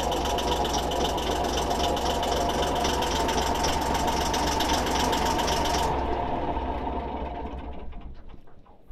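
Inboard engine of a pompong, a small wooden boat, running with a fast, steady knock. About six seconds in it is shut off and runs down to a stop.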